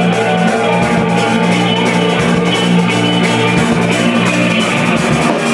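Live ambient shoegaze music from a two-piece band: sustained, effects-laden electric guitar notes held over a steady drum-kit rhythm with rapid cymbal ticks.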